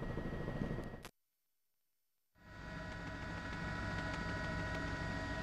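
Steady helicopter engine and rotor noise, a hum with several constant high whining tones. The sound drops out completely about a second in and fades back in just over a second later.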